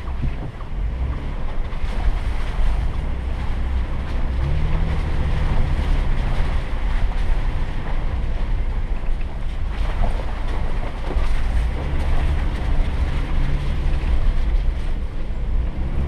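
4x4 engine running at low speed while the vehicle crawls along a rutted, muddy dirt trail: a steady low rumble with tyre and trail noise and a few short knocks.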